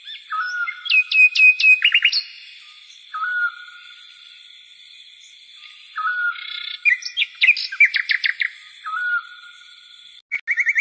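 A songbird singing in repeated phrases every few seconds: a short whistled note followed by quick runs of sharp chirps. The sound cuts out for a moment near the end.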